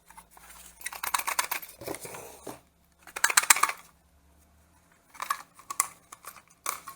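Soldering-station packaging and small hard parts being handled: two spells of rapid crinkling and clicking, about a second in and about three seconds in, then a few scattered clicks.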